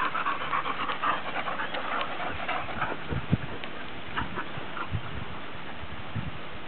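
A pack of huskies panting and scuffling while they play, with a busy stretch of short sounds in the first couple of seconds. Several low thumps follow in the middle, the loudest about three seconds in.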